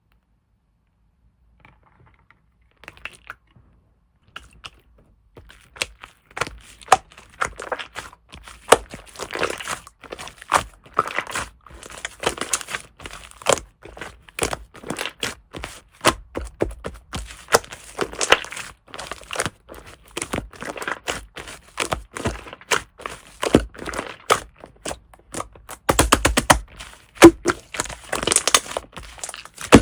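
Fluffy shaving-foam slime being squeezed, poked and stretched by hand, giving a dense, irregular run of short clicks and crackles. It starts silent, with a few faint clicks about three seconds in, and becomes steady and louder from about six seconds in.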